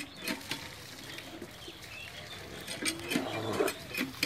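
Shallow pond water splashing and sloshing in short, irregular bursts as a fishing net is gathered and hauled up by hand, with a busier stretch of splashing about three seconds in.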